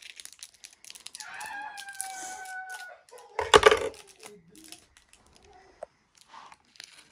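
Small plastic packet of slime decorations crinkling and clicking as it is snipped with scissors and pulled open by hand. A high held tone, falling slightly, lasts for a couple of seconds early on, and one short loud noisy burst comes about halfway.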